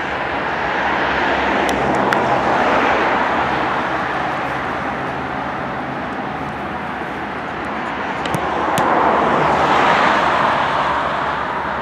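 Outdoor rushing background noise that swells twice, a couple of seconds in and again near the end, with a few faint sharp knocks.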